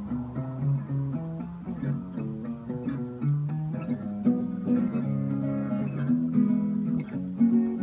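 A Martin Little Martin travel-size acoustic guitar, freshly restrung, played on its own: chords and picked notes changing steadily in a relaxed tune.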